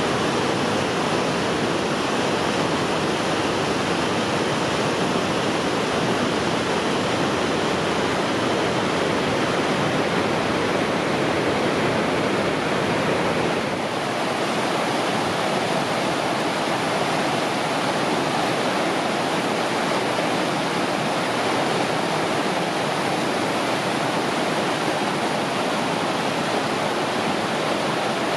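River rapids and waterfalls rushing, a steady wash of white water that changes slightly in tone about halfway through.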